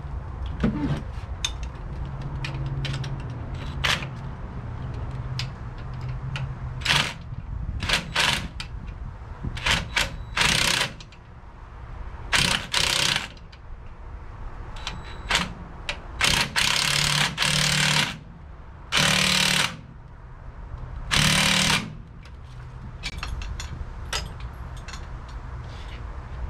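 Cordless impact wrench hammering bolts in short bursts, about ten of them, the longest about a second and a half, with light metal clicks between. The bolts are being run in on the engine mounts.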